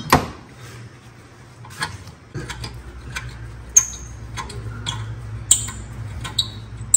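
A ratchet on an extension clicking in scattered strokes as a rusty rear caliper bracket bolt is worked loose, with a few short high-pitched squeaks among the clicks. A low steady hum comes in about two seconds in.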